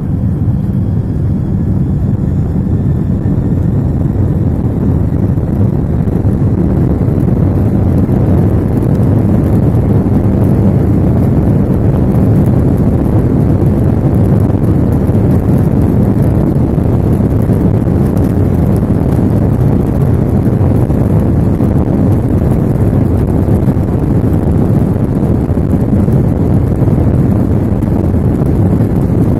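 Loud, steady rumble of a Boeing 767's jet engines heard from inside the cabin while the airliner rolls along the ground, swelling slightly over the first several seconds.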